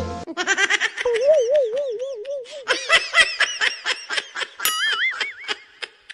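Laughter in quick repeated bursts, with a wavering pitched sound for a second or two early on and again higher about three-quarters of the way through.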